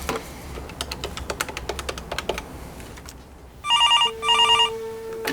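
A desk telephone being dialled with a rapid run of button clicks, then ringing in two short warbling bursts.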